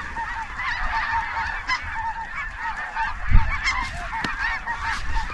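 A large flock of snow and Ross's geese calling, a dense chorus of many short, overlapping yelps and honks. A single low thump about three seconds in.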